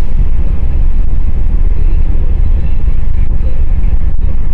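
Car driving along a road, heard from inside: a loud, steady low rumble of road and wind noise that swamps the phone's microphone.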